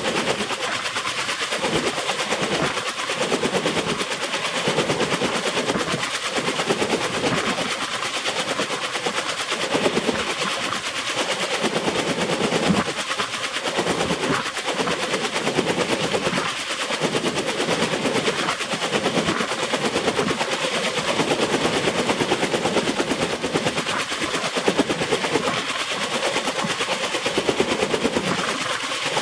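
Kaman K-MAX K-1200 helicopter running on the ground, its intermeshing twin rotors turning with a fast, steady chop over the hiss of its turboshaft engine.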